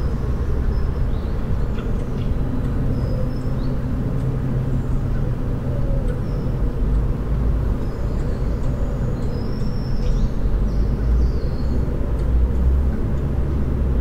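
Steady low outdoor rumble, the loudest sound throughout, with faint short high bird chirps scattered through it.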